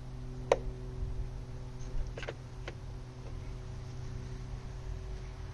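A long wood screw being turned the last few turns by hand: a few sharp clicks and creaks, the loudest about half a second in, over a steady low hum.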